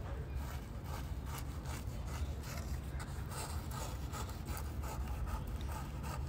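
Irregular rubbing and scratching strokes over a low steady rumble.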